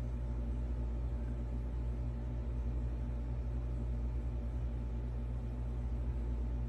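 Steady low mechanical hum from a machine running, even and unchanging throughout.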